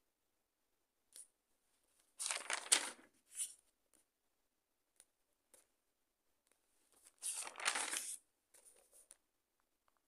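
Pages of a paper notebook being turned twice, each a short papery rustle, the first about two seconds in and the second about seven seconds in, with a few faint ticks between.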